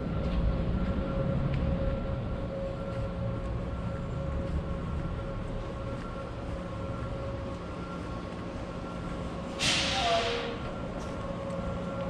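Steady mechanical hum: a low rumble under several constant tones, with a short, loud hiss and a falling whistle about ten seconds in.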